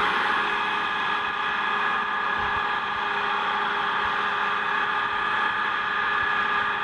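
Combine harvester running steadily: a constant engine drone with a high, even whine over it.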